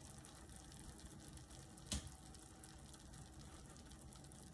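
Faint, steady sizzle of lobster pieces frying in olive oil and garlic in a nonstick pan, with a single sharp click about two seconds in.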